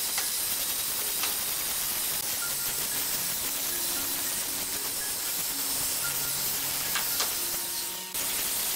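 Hand-held angle grinder spinning a cylindrical sanding drum against hardwood, a steady high hiss of abrasive on wood. The sound cuts out for a moment near the end and picks straight up again.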